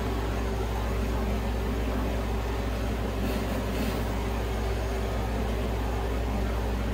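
Handheld torch flame hissing steadily as it is passed over wet acrylic pour paint to raise cells.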